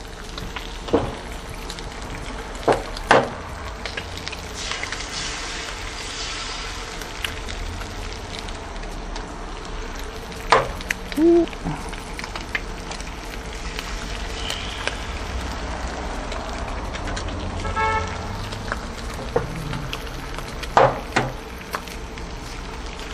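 Beef bacon sizzling steadily on a 17-inch tabletop Blackstone griddle, with eggs cracked onto it one at a time into the rendered bacon fat. Sharp shell cracks come in three bursts, about a second in, around ten seconds and near twenty-one seconds, each followed by another egg frying.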